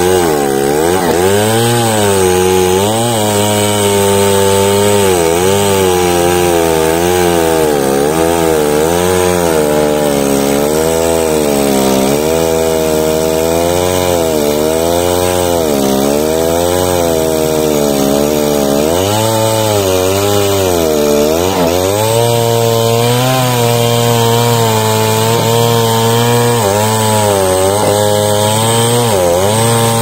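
Large two-stroke chainsaw cutting through the base of a thick teak trunk, running at high revs throughout. Its engine pitch sags and recovers every second or two as the chain loads in the wood, with deeper dips about two-thirds of the way in and near the end.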